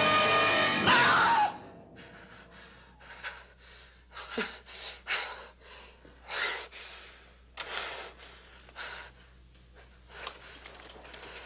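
A man gasping and breathing hard in ragged breaths, about one a second, frightened awake from a nightmare. Before that, dramatic music ends with a sudden loud burst about a second in.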